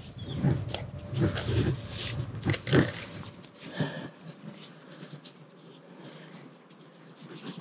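Orange rope being coiled in a figure eight between gloved hands: irregular rustling and rubbing of rope, gloves and jacket against the chest-worn camera, busiest in the first three seconds and fainter after.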